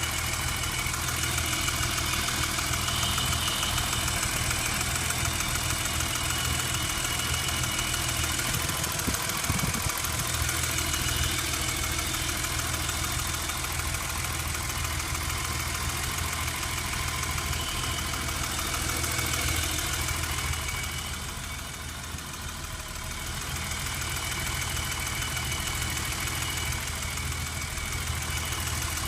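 BMW 635CSi straight-six engine idling steadily, with a steady high-pitched whine over the engine note that dips briefly about two-thirds of the way through. The owner cannot tell whether the whine is normal.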